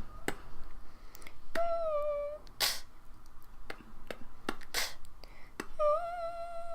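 A person imitating a sound effect by mouth, beatbox-style: quick tongue clicks and pops, two sharp hissing 'tss' bursts, and two hummed notes held about a second each, the second starting near the end.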